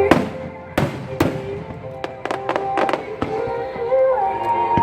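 Aerial fireworks bursting in a series of sharp bangs over music: one at the start, two about a second in, a quick run of cracks around two and a half seconds, another just past three seconds, and one more near the end.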